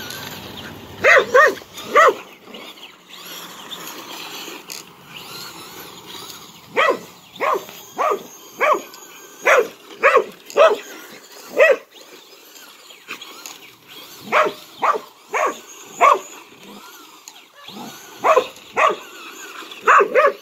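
A dog barking at a remote-control toy truck it is chasing in play. About twenty short, sharp barks come in four runs: three near the start, a long run of about eight in the middle, then two shorter runs.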